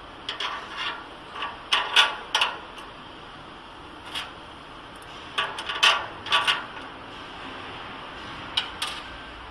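Metal parts clicking and knocking in short clusters as the conveyor tail frame of a flow pack wrapping machine is fitted to the machine's infeed and its mounting screws are set. The loudest knocks come about two seconds in and again around six seconds.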